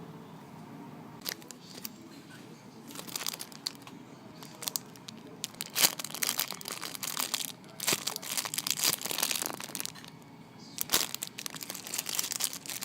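Crinkling of plastic packaging being handled, in two spells of rustling and crackling: one from about three seconds in to about eight, and another near the end.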